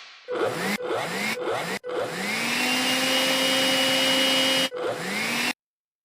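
Recorded vacuum cleaner motor spinning up, edited into clips: three short starts with rising pitch, each cut off after about half a second. Then a longer run climbs and settles into a steady whine, and it is cut off abruptly, followed by one more brief start-up before silence near the end.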